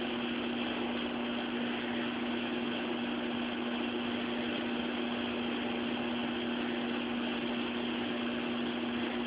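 A steady mechanical hum with an even hiss, unchanging throughout.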